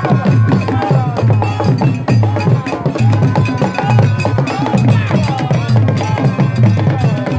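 Ghanaian traditional drum ensemble playing a steady beat: deep drum strokes a little over two a second under sharp clicking strikes, with voices singing over the drums.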